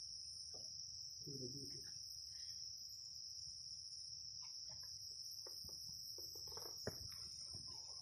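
Steady high-pitched insect trill, a continuous chorus of crickets or similar insects in the grassland. A few footsteps and knocks come in the last few seconds.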